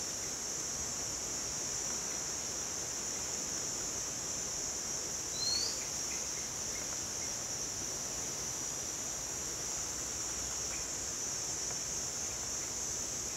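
Steady high-pitched drone of insects, with a single short rising bird chirp about five seconds in and a few faint twitters.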